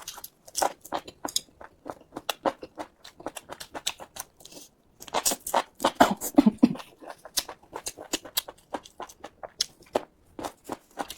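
Close-miked mouth sounds of someone chewing and biting food: a rapid, irregular run of wet clicks and crunches, pausing briefly about halfway.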